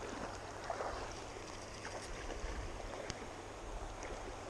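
Steady river and wind noise on the microphone, a low rumble with a few faint scattered ticks.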